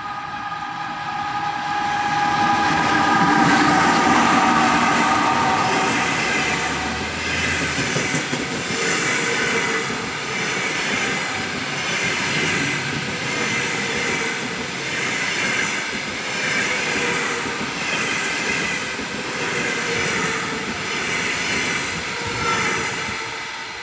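ЭП2К electric locomotive and its passenger coaches passing at speed. For the first few seconds a horn sounds several tones at once, dropping slightly in pitch as the locomotive goes by. Then the coaches' wheels clatter over the rail joints in a steady rhythm, roughly once a second.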